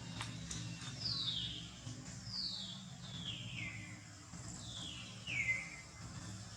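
Baby macaque crying: a series of five high, thin calls, each sliding downward in pitch over about half a second. A couple of faint ticks come right at the start.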